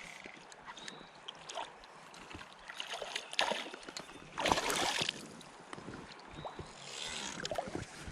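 Water splashing in irregular bursts, loudest about four and a half seconds in, as a hooked smallmouth bass thrashes at the surface while being landed.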